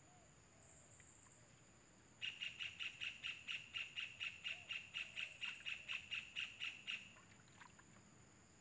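Kingfisher calling: a fast run of sharp, evenly repeated notes, about four or five a second. It starts about two seconds in and stops after about five seconds.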